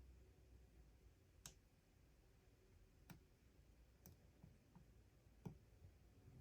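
Faint metal clicks of a lock pick and turning tool working the pins inside a padlock: a handful of sparse clicks a second or so apart, the sharpest about five and a half seconds in.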